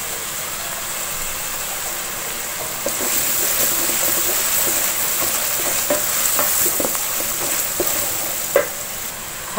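Sliced onions and whole spices frying in hot oil in an aluminium pot, with a steady sizzle that grows louder about three seconds in as turmeric is stirred through. A wooden spatula scrapes and knocks against the pot a few times near the end.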